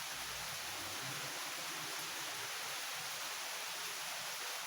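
Steady rain falling, a constant even hiss with no single drops standing out.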